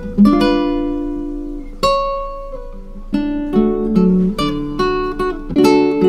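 Background music: an acoustic guitar picking single notes and chords, each note starting sharply and fading away.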